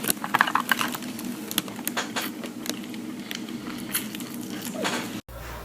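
Irregular clicks and crackles over a steady low hum, cutting off abruptly near the end.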